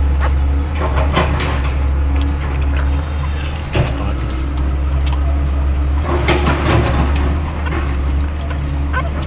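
Steady low hum under rustling, with a few faint, short, high squeaks from newborn puppies crying.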